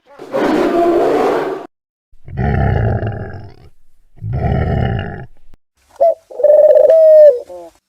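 Three rough, roar-like animal calls, then about six seconds in a pigeon cooing on one loud held note.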